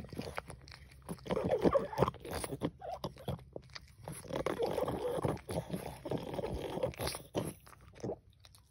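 French bulldog licking whipped cream from a small plastic dish: quick wet licks and smacks of the tongue against the dish, in two busy spells with a short lull between.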